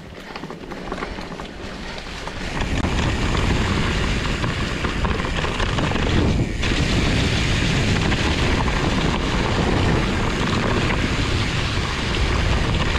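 Wind buffeting the microphone together with the rumble and rattle of a Trek Farley 7 fat bike rolling over a wet trail, swelling louder about two and a half seconds in, with a brief dip about halfway through.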